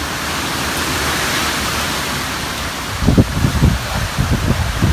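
Hurricane wind and rain making a steady loud rushing noise; from about three seconds in, strong gusts hit the microphone in irregular low buffeting blasts.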